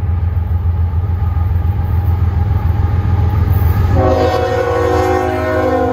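CSX diesel freight locomotive approaching with a steady low rumble. About four seconds in, its air horn sounds a held multi-note chord that is still going at the end.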